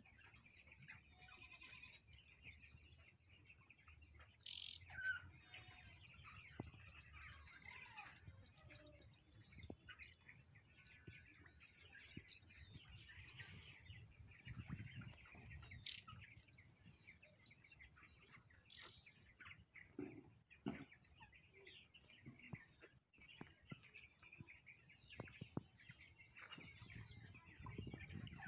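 Small birds chirping and twittering, with a few sharper high chirps standing out, over a faint low rumble.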